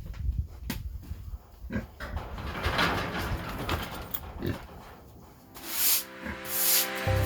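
Pigs grunting in their pen. Music with a regular beat comes in near the end.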